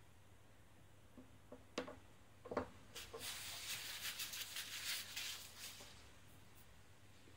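A few light taps and clicks of small plastic mould parts and tools being set down on a wooden tabletop, then about three seconds of crinkly rustling.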